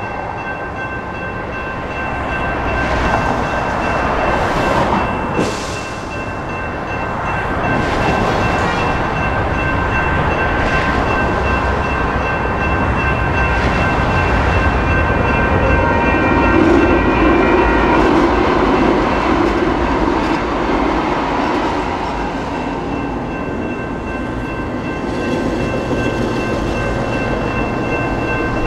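Railroad crossing electronic bells ringing steadily over the rumble of a passing train and road traffic.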